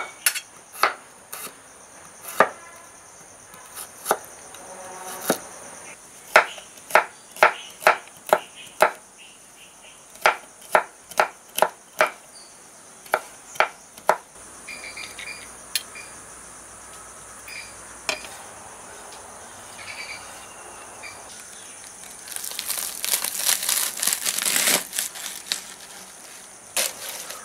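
Kitchen knife slicing garlic cloves on a wooden chopping board: a series of sharp, irregular knocks as the blade hits the board, then near the end a few seconds of dense crunching as it cuts through a bunch of spring onions. A steady high insect drone sits underneath.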